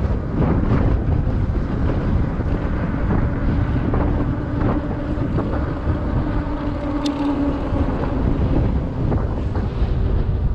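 Wind buffeting the microphone of an action camera on a moving bicycle, a steady low rumble. A faint steady hum runs through the middle, with a single sharp click about seven seconds in.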